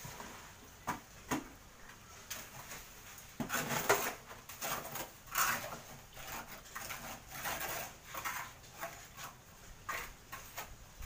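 Hand trowel scraping and spreading wet cement mortar across a kitchen cabinet's base slab in repeated strokes, with a few knocks early on.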